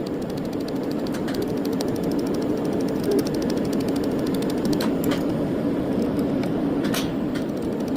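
A machine running steadily, with a fine rapid ticking over its hum and a few sharp clicks about five and seven seconds in.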